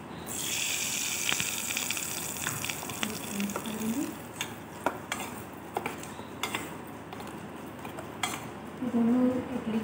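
Hot tempering oil with mustard seeds, curry leaves and red chilli is poured into a steel bowl of chutney and sizzles loudly, fading over a couple of seconds. A spoon then stirs it, clinking now and then against the steel bowl, and a woman's voice begins near the end.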